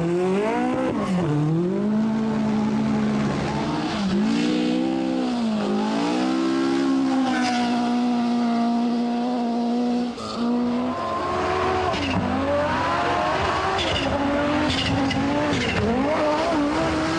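Group B rally car engine running hard, its pitch climbing and dropping again and again as it accelerates and shifts, with a brief lift off the throttle about ten seconds in.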